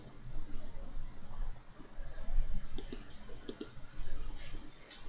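Computer mouse clicks: a few short sharp clicks in the second half, some in quick pairs like a button being pressed and released, while menus are worked in software.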